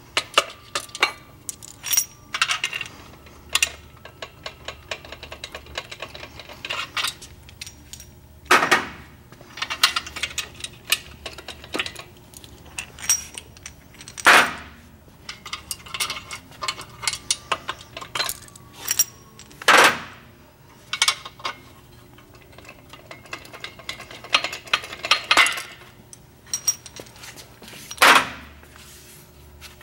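Metal engine main bearing caps with their bolts being lifted off the crankshaft and set down on a steel tool-cart tray, a string of clinks and rattles. Four louder knocks are spread through it.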